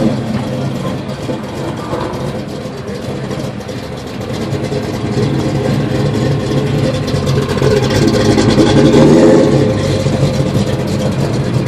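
Built-up Oldsmobile V8 of a 1979 Trans Am running, growing louder from about five seconds in, loudest near nine seconds, then easing off slightly.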